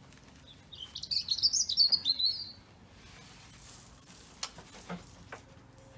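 A small garden songbird sings a quick run of high twittering notes for about two seconds. Afterwards come a few faint clicks and a brief rustle.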